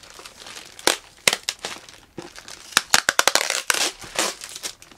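A mailed parcel's outer wrapping being torn and crumpled by hand. Irregular crinkling and tearing come in uneven bursts, thinner around the middle and denser after about three seconds.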